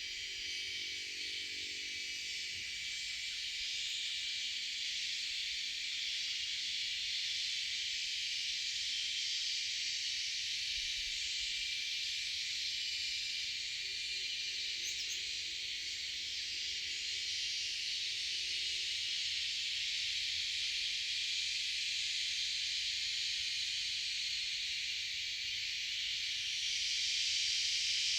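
Steady chorus of insects, a dense high-pitched buzzing hiss that swells slightly near the end. A faint low drone comes and goes twice underneath.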